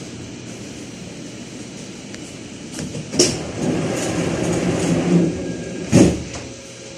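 Electric commuter train running, heard from inside the car: a steady rumble that grows louder about halfway through, with two sharp loud knocks, one about three seconds in and a louder one about six seconds in.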